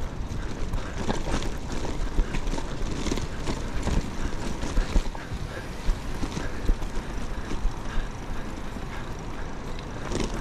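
Mountain bike rattling over a stony track: a dense, irregular clatter of many small knocks from the bike on loose rocks, over a steady low rumble.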